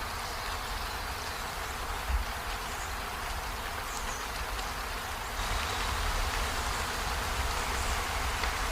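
Steady rain falling on trees and a window, a continuous hiss that grows louder about halfway through. There is a brief low thump about two seconds in.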